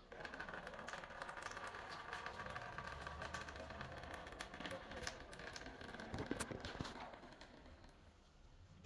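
Water trickling and splashing from a homemade plastic-bottle fountain: water poured into the bottle funnel and a thin stream falling from a tube into a plastic basin, a steady splash full of small ticks that fades out near the end.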